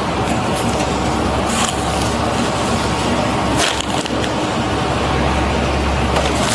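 Steady rain noise, a crackling hiss on the body-worn camera's microphone, with a couple of sharp clicks about one and a half and three and a half seconds in.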